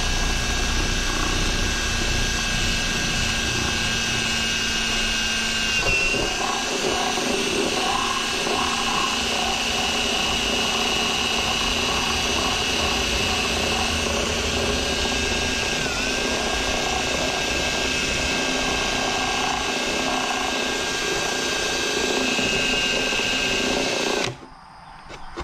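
Electric drill boring out a hole in a center console with a large bit, its motor whining steadily. The pitch sags briefly twice under load, and the drill stops about a second before the end.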